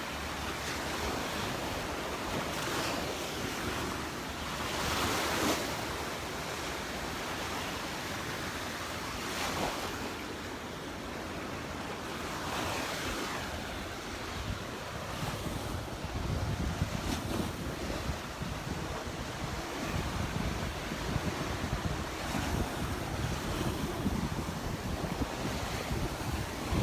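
Gulf of Mexico surf washing onto the beach, swelling and falling every few seconds, with wind buffeting the microphone more strongly in the second half.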